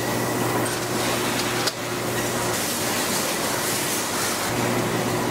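Factory machinery running: a steady mechanical hum and hiss with a sharp click about two seconds in. The low hum drops out for about two seconds past the middle, then returns.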